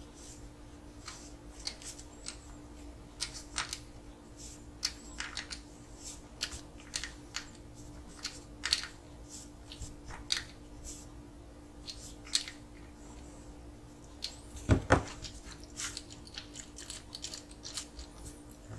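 Light irregular clicks and taps of small hard parts and hand tools being handled during model-kit chassis assembly, with a louder double knock about 15 seconds in, over a faint steady hum.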